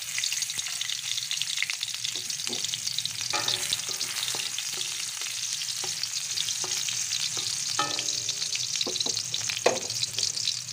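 Chopped garlic sizzling steadily in hot cooking oil in a metal wok, with a few clicks and scrapes of a spatula stirring it against the pan.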